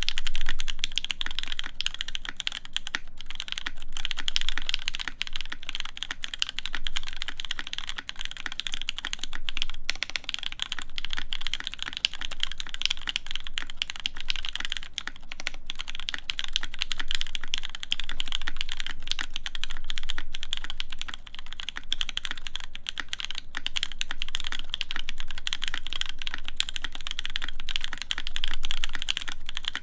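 Continuous rapid typing on an EVE Moon TKL mechanical keyboard with a full aluminium plate, GMK Apollo keycaps and stock, unmodded Gateron Cap v2 Milky Brown tactile switches. The keystrokes come as a dense, unbroken run of clacks.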